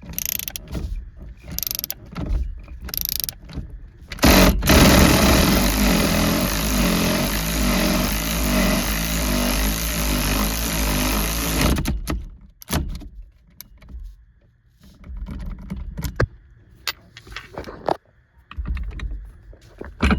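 Ratchet wrench clicking in short strokes as it cranks the center bolt of a steering wheel puller, working a sticky steering wheel off its hub. About four seconds in, a loud even noise takes over for roughly seven seconds, then scattered clicks and knocks as the wheel comes loose.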